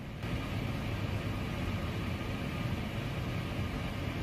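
Steady background rush of an airliner cockpit on the ground, an even airflow-like noise with no distinct tones. It steps up slightly just after the start and then holds.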